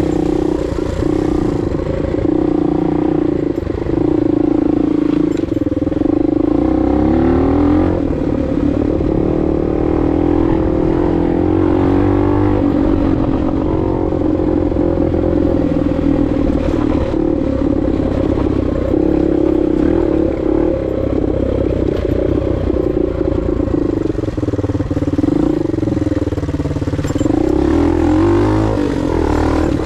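Suzuki DR 125's single-cylinder four-stroke engine running loud under load, its pitch rising and falling as the throttle is worked, with quick revs up about a quarter of the way in and again near the end.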